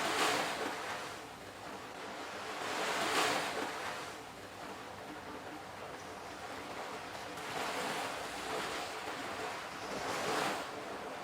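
Rushing water like surf washing in, swelling and falling back in slow surges about four times, over faint steady low tones.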